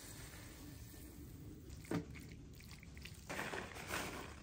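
Faint soft scraping and plopping of cooked ground beef being tipped from a frying pan into a ceramic slow cooker, with a single knock about two seconds in. From about three seconds in comes rustling and pattering as shredded cheese is shaken from a plastic bag onto the food.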